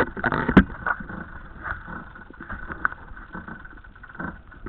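Sharp knocks and clicks of sailboat gear handled at a cockpit winch, bunched in the first second, then scattered softer knocks over a steady hiss.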